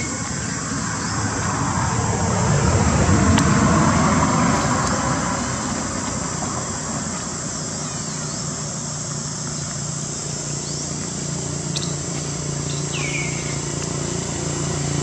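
A motor vehicle passing by on the road, growing louder to a peak about three seconds in and then fading to a steady hum. Throughout there is a thin steady high-pitched whine, and a few short falling chirps come near the end.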